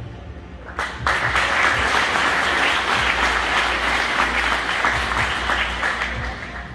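Audience applause: many people clapping, starting about a second in and dying down near the end.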